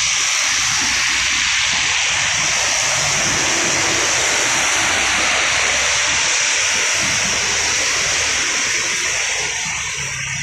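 Steady hiss of rain and tyres on a wet road as cars, motorbikes and a truck pass, easing a little near the end.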